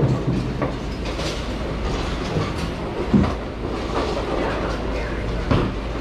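Bowling alley din: a steady low rumble of bowling balls rolling on the wooden lanes, with scattered sharp knocks and clatters, the loudest about three seconds in.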